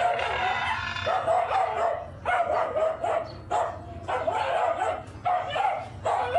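Dog barking and yipping in short calls, repeated over and over, one or two a second.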